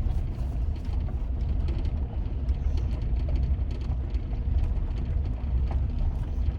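Pickup truck moving slowly, a steady low rumble of engine and road noise heard from inside the cab.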